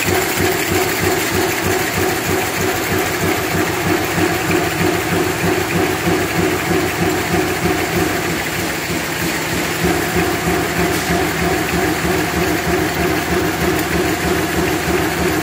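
Double-lane aerosol can bottom production line running at speed: conveyors and machinery giving a loud, steady mechanical hum with a fast, regular pulsing beat.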